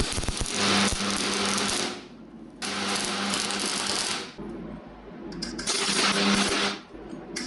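Angle grinder running and grinding steel in repeated passes: about three bursts of harsh grinding, each a second or two long, with the motor still spinning more quietly between them.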